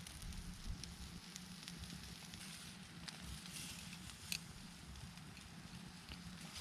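Wood fire crackling, with scattered sharp pops and one louder pop about four seconds in, over a steady low hum.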